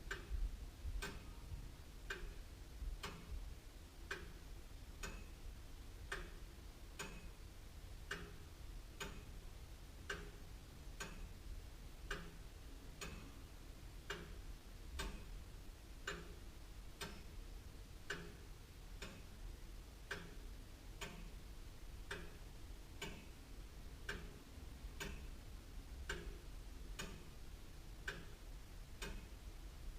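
Antique clock by William Holliwell of Liverpool ticking steadily. Its escapement gives about two sharp ticks a second, alternating tick and tock.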